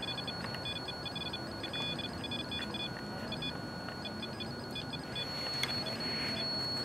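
Electronic ghost-hunting device on the post beeping: irregular short beeps that stop and start, over a steady high-pitched whine.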